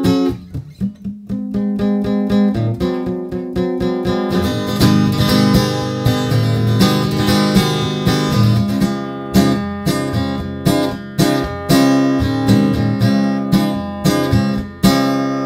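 Acoustic guitar strummed in a steady rhythm through an instrumental break of a song, with no singing.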